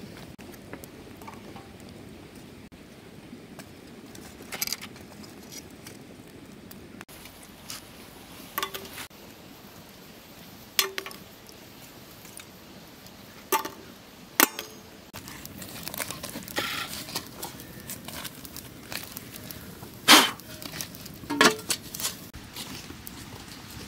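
Scattered clinks and knocks of cooking utensils and dishes being handled, some ringing briefly, over a faint steady hiss; the loudest comes about twenty seconds in.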